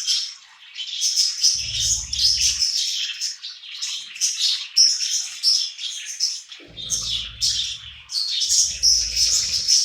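Pet budgies chirping in a dense, steady stream of quick high chirps, with a low rumble underneath in a few short stretches.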